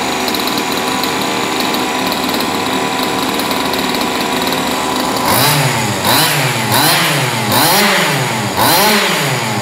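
HPI Baja 5T's small two-stroke petrol engine, fitted with an aftermarket tuned exhaust pipe, idling steadily, then revved up and back down about five times in quick succession over the last few seconds.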